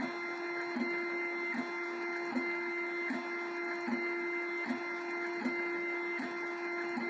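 BLV MGN Cube 3D printer printing: a steady whine from its motors, with a short knock repeating about every three-quarters of a second as the print head works back and forth.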